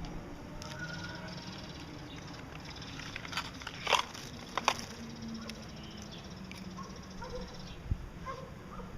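Gouldian finch sneezing: two short, sharp sneezes about four seconds in, half a second apart, amid a few faint soft chirps. The sneezing is the sign of a contagious infection.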